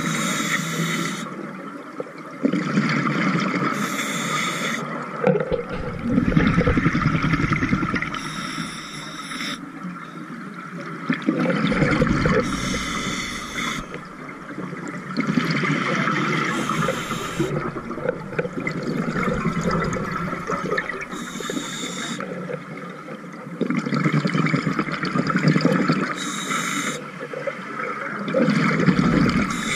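A diver breathing through a scuba regulator underwater: a hissing inhalation about every four seconds, each followed by a bubbling rumble of exhaled air.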